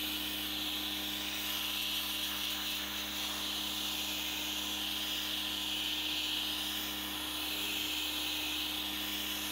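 Pressure washer running, its high-pressure water jet spraying onto corrugated roof sheets and blasting off mould, a steady hiss with a steady hum underneath.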